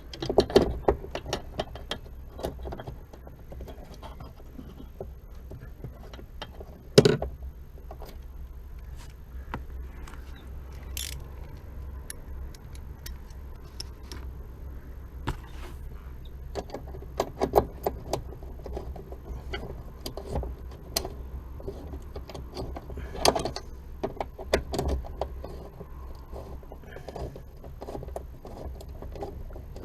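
Scattered clicks, clinks and knocks of hand tools and metal parts on a car's clutch pedal assembly, with a sharp knock about seven seconds in and another a little before the end, over a low steady hum.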